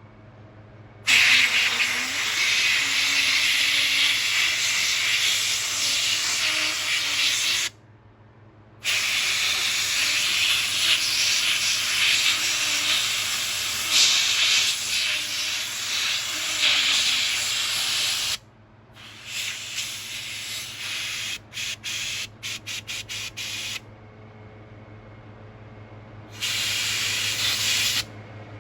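Compressed-air blow gun hissing in long blasts, then a quick run of short trigger bursts, as air pressure blows a part clean. A low steady hum runs underneath.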